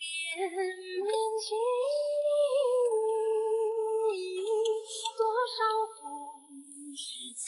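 Background music: a woman's voice singing a slow melody in long held notes that glide gently from pitch to pitch.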